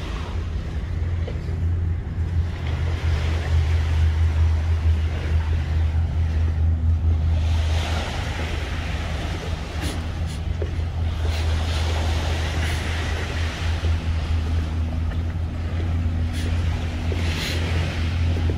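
A steady low mechanical drone with a few fixed low tones, under a rushing hiss that swells and fades several times.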